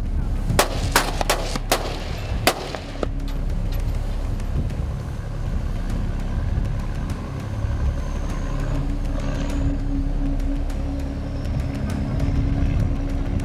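A quick series of sharp gunshots in the first two and a half seconds: warning shots fired from a pursuing patrol boat. After them the boat's engine runs with a steady drone at full speed.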